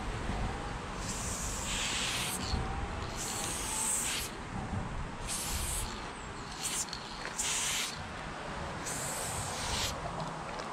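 Aerosol spray-paint can fitted with a Montana Level 6 fat cap, hissing in about six separate bursts, each under a second to about a second and a half long, as lines are sprayed. A low background rumble runs underneath.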